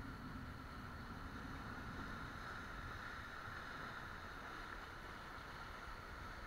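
Steady rush of sea water surging and foaming over lava rocks.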